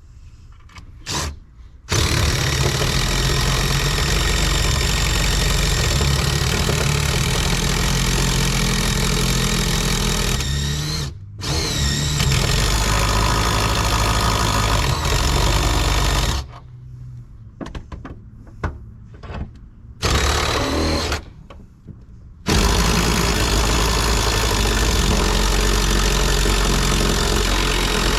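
Power drill with a step bit cutting through car body sheet metal to enlarge a bolt hole, run in long stretches with a few short stops and a rising spin-up as it restarts about eleven seconds in.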